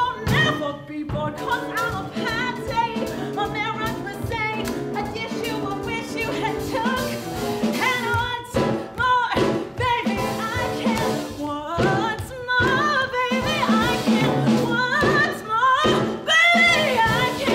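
A woman and a man singing a brassy Broadway show tune as a duet over instrumental accompaniment.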